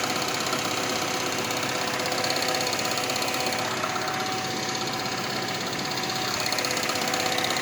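Renault Megane 2 engine idling from a cold start, with a fast, even metallic knocking: a loose exhaust manifold heat shield rattling, which sounds like a knocking engine and stops once the engine is warm.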